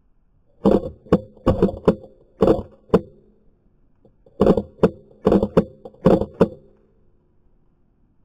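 Airsoft replica fired through a scope-cam rig, shots in quick pairs: six double taps, each shot a sharp crack with a brief ringing of the gun body, three pairs, a short pause, then three more.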